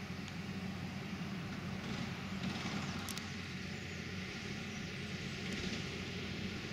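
Farm tractor diesel engines running steadily under working load, with a short click about three seconds in.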